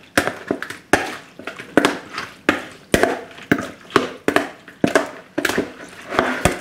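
A metal spoon stirring and tossing a blood cockle salad in a large plastic mixing bowl, knocking and scraping against the bowl and the wet cockles about twice a second.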